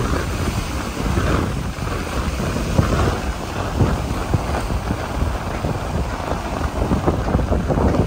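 Wind blowing across the microphone: a steady, low, rumbling rush that rises and falls a little without break.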